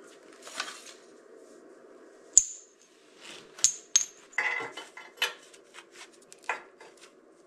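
Pieces of metal clinking and scraping as they are handled and set down: a handful of sharp ringing clinks, the loudest about two and a half seconds in, then smaller knocks, over a steady low hum.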